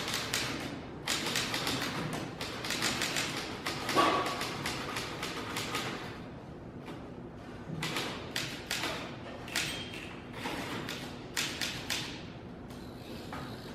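Typewriters typing: fast runs of key strikes, with one heavier thump about four seconds in. After that the keystrokes come in shorter, sparser bursts and thin out near the end.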